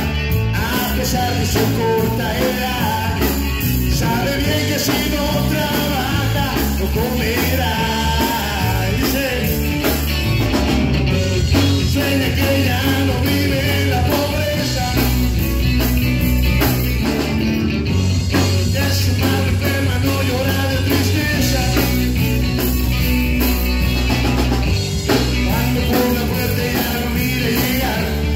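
Live rock band playing: electric bass, drum kit and electric guitar, loud and continuous, with the bass strong in the low end.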